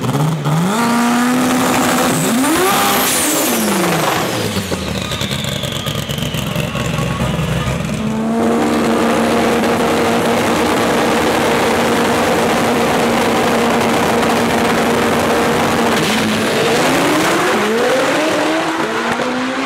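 Turbocharged front-wheel-drive drag car engine running loud. Revs rise in the first seconds, the engine holds a long steady high pitch through the middle, then the revs climb again in rising sweeps near the end.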